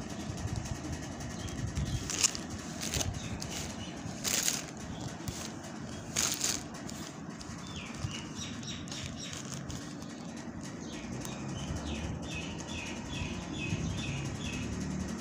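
Cloth rustling as the embroidered fabric and the phone are handled, in a few brief bursts in the first half. Faint high chirps repeat quickly in the background in the second half.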